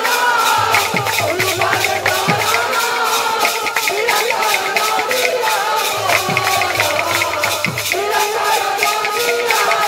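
Odia kirtan music: a fast, steady jingle-clash of hand cymbals about four times a second over a melody line, with a few deep drum strokes that slide in pitch.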